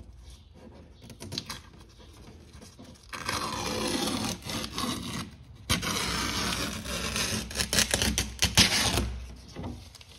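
Masking tape being peeled off a hull joint in two long pulls, a crackling tearing rip that starts about three seconds in. After a brief break, the second pull goes on more raggedly and stops about a second before the end.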